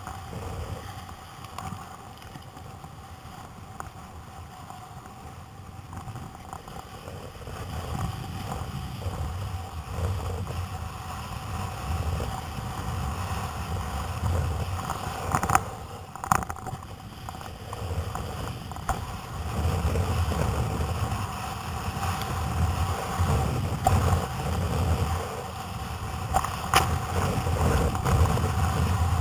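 Wind buffeting the microphone and choppy sea water sloshing and splashing against a kayak's hull, growing louder after several seconds, with a few sharp splashes or knocks around the middle and near the end.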